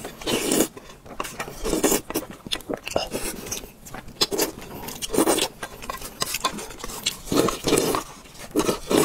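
Close-miked slurping of spicy instant noodles and chewing of rice cakes, in uneven bursts every second or so.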